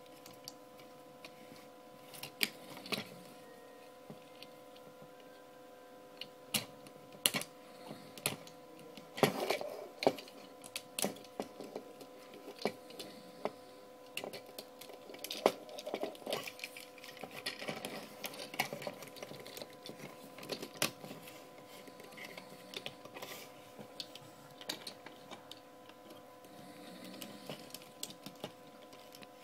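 Plastic parts of a large Transformers Dark of the Moon Ultimate Optimus Prime figure clicking and clattering as it is handled and its parts are moved. The clicks and knocks are irregular, sometimes in quick clusters, over a faint steady hum.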